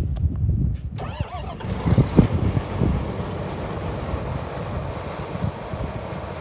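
John Deere 7810 tractor's six-cylinder diesel engine cranked over and catching about a second in, firing up loudly, then settling into a steady idle.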